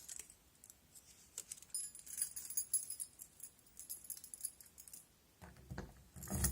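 A ring of keys jingling in hand, in short bursts, while a key is picked out to unlock a door lock; a few dull knocks near the end.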